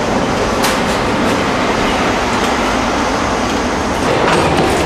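ČKD Tatra tram running along the track, heard from inside the passenger compartment: a steady rumble of wheels on rails, with a sharp click about half a second in and a few more clicks near the end.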